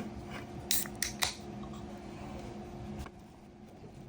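A steady mechanical hum at two pitches that cuts off about three seconds in, with three sharp clicks around the first second.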